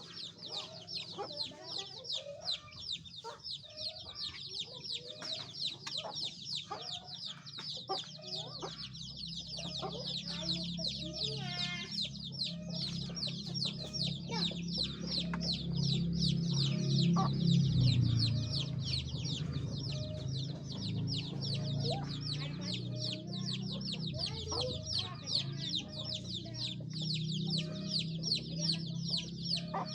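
A brood of chicks peeping without pause, many high calls overlapping, each call falling in pitch, with lower clucking calls mixed in. A low hum swells up in the middle and fades again.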